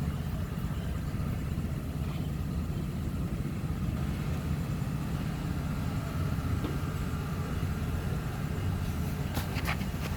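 Opel car engine running at idle with a steady low rumble, the engine that the owner presents as knocking. A few sharp clicks come near the end.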